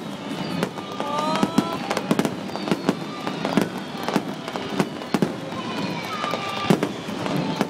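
Aerial fireworks going off in quick succession: a dense, irregular run of sharp bangs and crackles.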